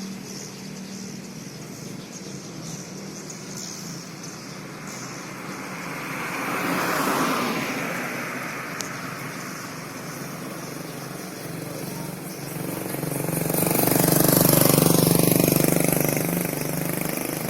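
Two vehicles passing by, one about seven seconds in and a louder one near the end, each swelling and falling in pitch as it goes past, over a steady low hum.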